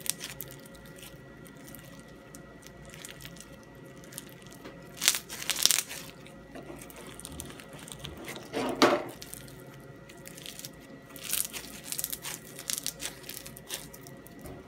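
Clear slime packed with bingsu beads (small cut plastic straw beads) being squeezed and kneaded by hand, giving irregular crunches and crackles as the beads pop and grind in the slime, with louder crunches about five and nine seconds in.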